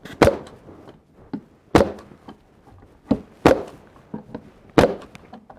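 Bostitch 651S5 pneumatic 16-gauge stapler firing staples into the wooden corner joints of a beehive super: five sharp shots about a second or so apart, with lighter knocks between.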